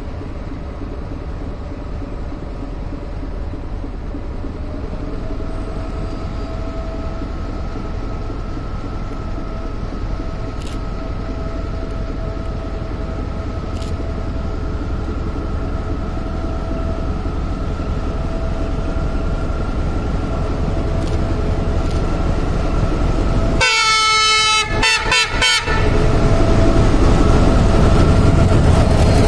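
Diesel locomotive hauling a passenger train approaching slowly, its engine rumble and a steady tone growing louder. About 24 seconds in, its horn sounds for under two seconds, broken into a few short blasts. Then the locomotive passes close, with louder engine and wheel noise.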